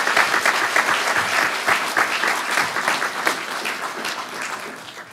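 Audience applauding, many hands clapping at once, fading away toward the end.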